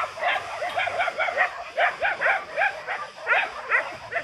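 Several dogs barking and yelping together, a rapid run of short overlapping barks at different pitches.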